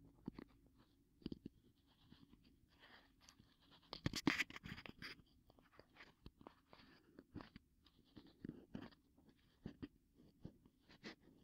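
Ear pick scraping and clicking at the entrance of the ear canal, recorded binaurally close up. It makes irregular short scratches, with a denser, louder run of scraping about four seconds in.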